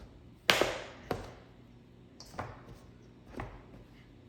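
Dough cutter (pastry blender) chopping cold butter into flour in a bowl: four separate strikes, the first the loudest. It is the stage of cutting the butter in until the mix reaches a cornbread-like crumb.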